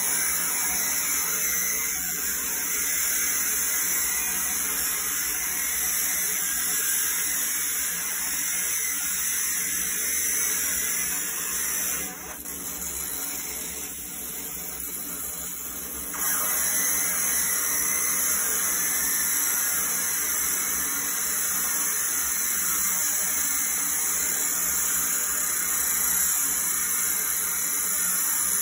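Laser engraver ablating the steel of a Glock 17 slide: a steady hissing, crackling buzz over the constant rush of the fume extractor. About twelve seconds in, the engraving sound drops away for roughly four seconds, then comes back.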